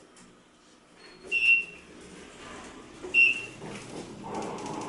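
A parking-garage elevator's electronic signal beeps twice, each a short high beep, about two seconds apart. A low rushing noise builds near the end.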